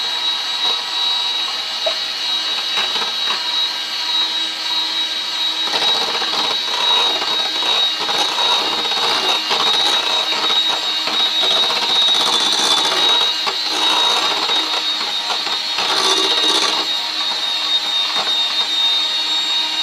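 Electric hand mixer (FIRST brand) running steadily, its twin wire beaters whirring through thick waffle batter in a glass bowl, with irregular light clicks and scrapes as the beaters touch the bowl.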